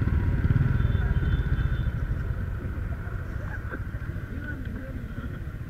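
Motorcycle engines idling, a low pulsing rumble that fades gradually.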